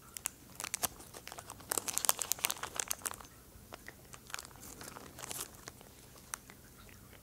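Foil treat packet crinkling as a hand handles it, in clusters of sharp crackles: the loudest about two seconds in, a second smaller cluster around five seconds.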